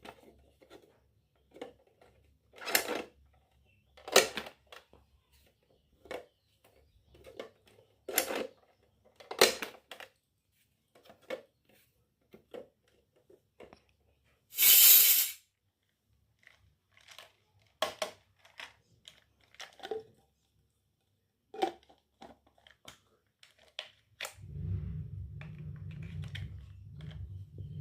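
Small toy kitchen pieces being handled: scattered light taps and clicks, with one loud noisy sound lasting about a second near the middle. A steady low hum starts about 24 seconds in.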